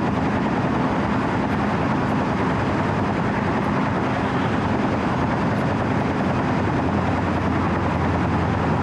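Wirtgen W 120 CFi cold milling machine running steadily, heard from the operator's platform: a constant diesel engine hum under a dense mechanical rush.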